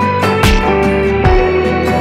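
Background music: plucked guitar over sustained notes, with a steady beat.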